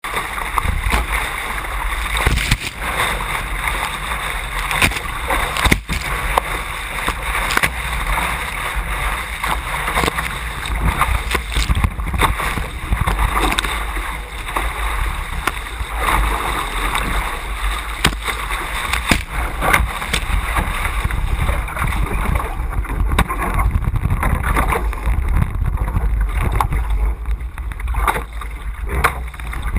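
Water rushing and splashing along an A Class catamaran's hull as it sails upwind at speed, with wind buffeting the microphone in a low, uneven rumble.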